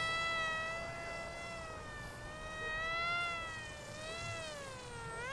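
Whine of the XK A180 F-22 Raptor RC jet's electric motor and propeller in flight, one high pitched tone that holds fairly steady, dips a little, then sweeps up sharply near the end.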